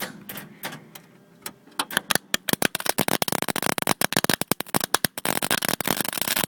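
MIG welding arc crackling and spitting while welding a new steel scuttle panel. There are a few short spits in the first second, then near-continuous crackle from about two seconds in. The spitting comes from grease left under the panel.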